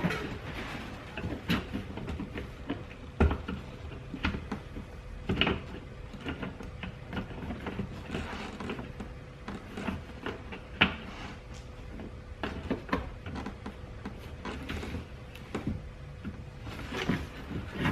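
Scattered clicks, knocks and rustling of hands working on car parts, with a few louder thumps, likely from twisting the plastic bulb sockets out of the rear light housings and handling them. A faint steady hum runs underneath.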